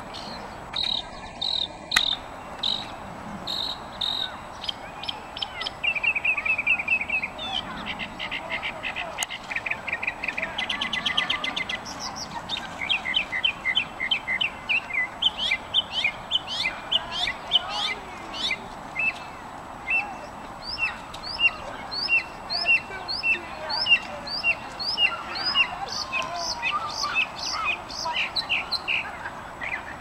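Northern mockingbird singing: a long run of varied phrases, each a quick series of the same note or chirp repeated several times before switching to the next. Later in the song the repeated notes are short rising chirps.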